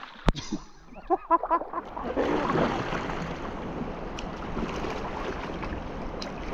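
Wind buffeting the microphone over flowing river water, a steady rushing noise with low rumble that sets in about two seconds in. It is preceded by a sharp click just after the start and a few short pitched calls about a second in.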